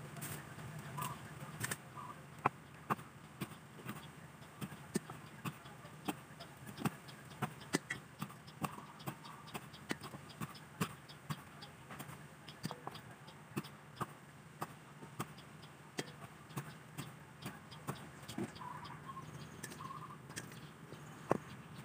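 Kitchen knife chopping on a wooden cutting board, sharp knocks about two a second, as the claw tips are cut off raw chicken feet.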